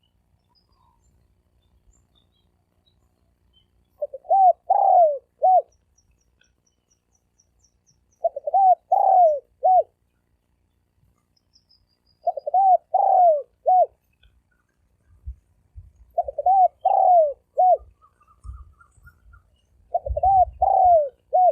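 Spotted dove cooing in a deep, ringing voice: five phrases of several short notes, one about every four seconds.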